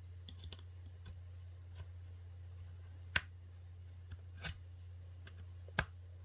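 Sharp plastic clicks and snaps from prying a tablet's cover clips apart, a few seconds apart with the loudest about three seconds in, over a steady low hum.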